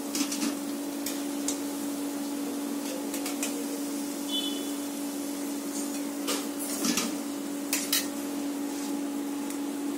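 Perforated steel slotted spoon clinking against a steel wok and bowl as fried fritters are lifted out of the oil, a handful of sharp clinks with a cluster about six to eight seconds in, over a steady low hum.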